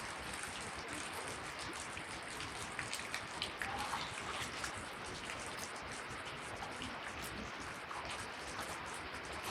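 Steady rushing of floodwater and falling rain: an even hiss dotted with many sharp drip-like ticks.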